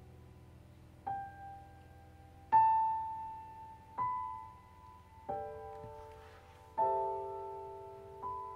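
Grand piano played slowly and sparsely: six single notes and chords struck about every second and a half, each left to ring and fade before the next.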